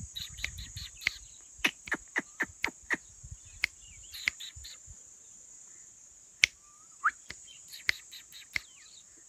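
A steady, high-pitched drone of insects, with irregular sharp clicks and short chirps over it. The clicks come thickest in the first three seconds, and the loudest one falls about six and a half seconds in.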